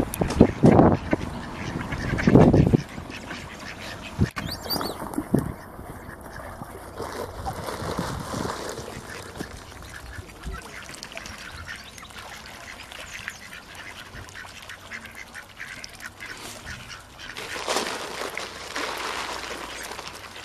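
Ducks quacking and calling on a pond. There are louder low bursts of noise in the first three seconds and a single sharp click about four seconds in.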